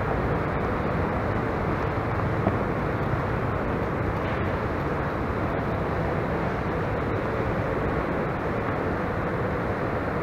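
Steady, even background noise of a large airport terminal hall, a constant hum with a faint steady tone in it.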